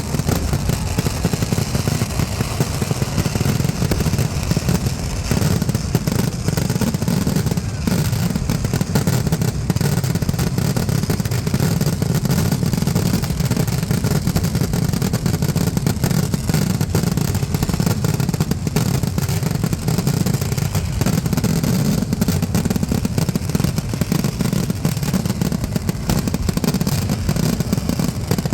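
Dense, unbroken barrage of firecracker explosions, the blasts so close together that they merge into one continuous low rumble with crackling on top.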